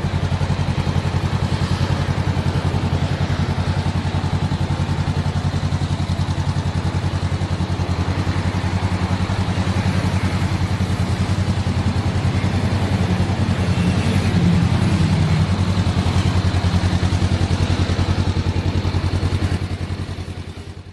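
Honda CBR500R's 471cc liquid-cooled parallel-twin engine idling steadily through its exhaust, a little louder past the middle, then fading out near the end.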